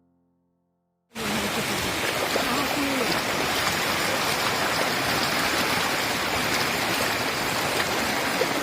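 Rushing water of a waterfall and stream, a steady, loud wash that cuts in abruptly about a second in after near silence.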